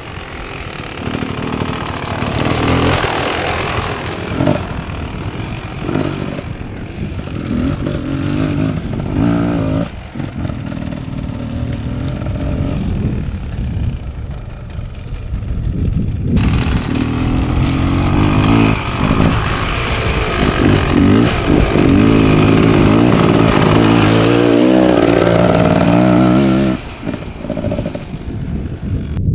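Dirt bike engine running under a rider, its pitch rising and falling as the throttle opens and closes, loudest and held steady in the later part before dropping off suddenly near the end.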